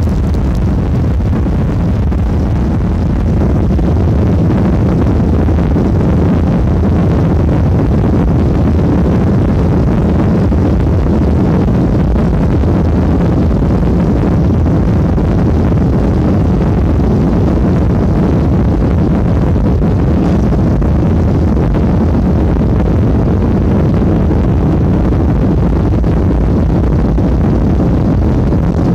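Boeing 737 taking off: a loud, steady rumble of the jet engines at takeoff power and the roll down the runway, heard from inside the cabin.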